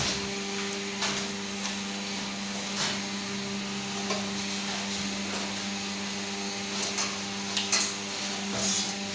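Leaf plate making press machines running with a steady electric hum, broken by a few short knocks as the presses are worked and the dry leaf sheaths handled.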